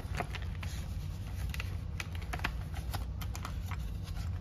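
Paper envelopes, a clear plastic binder pocket and paper money being handled: an irregular string of small rustles, crinkles and clicks over a steady low hum.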